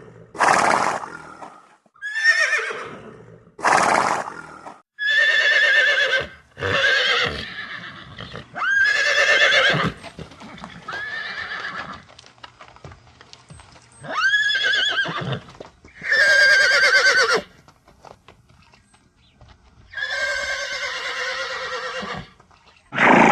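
A pony whinnying again and again: about ten separate quavering calls, each a second or two long, with short pauses between them.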